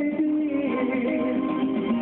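A man singing into a microphone over a ballad backing track, holding long notes that slide slowly in pitch above the accompaniment.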